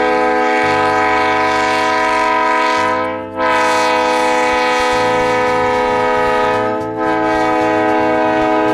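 EMD GP10 diesel locomotive's air horn sounding long blasts of several notes at once, broken briefly twice, with the locomotive's diesel engine running underneath as it passes close by hauling tank cars.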